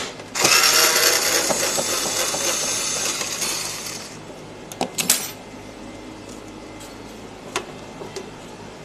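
A small handheld power tool, such as an electric screwdriver, runs for about four seconds, starting abruptly and fading off. Then a few sharp clicks of parts and tools being handled.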